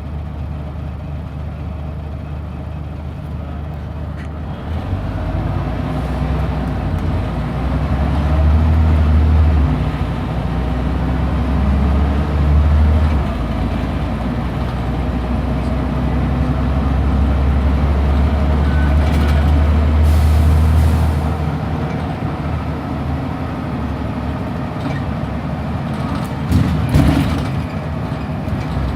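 Scania Omnidekka double-decker bus heard from on board, its diesel engine drone building as the bus pulls away and holding heavy for several seconds before easing about three-quarters through. Bursts of air hiss from the air system come about two-thirds through and again near the end.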